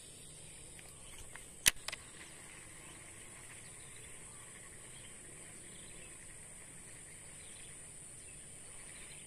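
Insects droning steadily at one high pitch, with a single sharp click about two seconds in.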